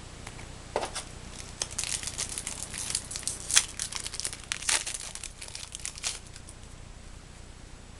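Foil Yu-Gi-Oh booster pack wrapper being torn open and crinkled: a run of sharp crackles starting about a second in and stopping about six seconds in.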